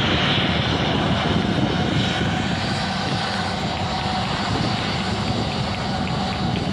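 Jet airliner's turbofan engines as a Jet2 Boeing 737 rolls along the runway: a loud, steady jet rush with a high hiss on top.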